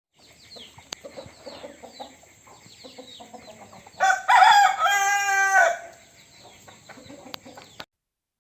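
A rooster crows once, loud, about four seconds in, the crow lasting under two seconds. Before and after it there is softer clucking with faint high chirps.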